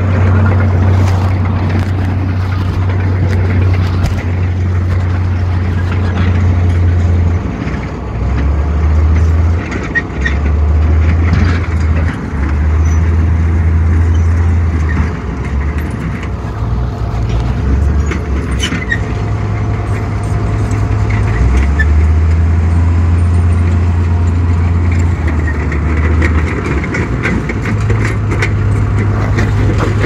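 Heavy diesel earthmoving machinery running, a loud low drone that steps up and down in level every few seconds.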